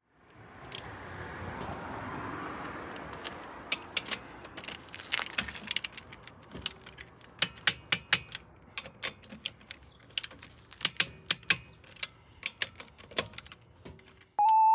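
Irregular metallic clicks and clinks of a socket wrench working the lug nuts on a car wheel, after a few seconds of soft rushing noise. A steady high tone starts just at the end.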